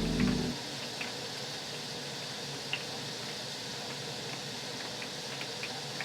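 Background music cuts off about half a second in, leaving a steady hiss with a few faint, scattered clicks.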